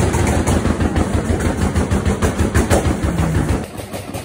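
Car engine revved hard, with a rapid machine-gun crackle of exhaust pops over its low drone, easing off about three and a half seconds in.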